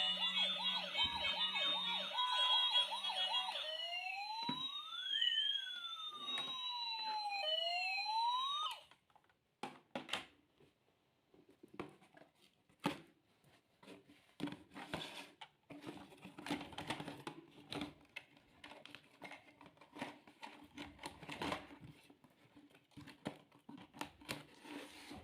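Battery-powered toy emergency vehicle's electronic siren wailing up and down, cutting off suddenly about nine seconds in. It is followed by scattered clicks and knocks of a plastic toy being handled.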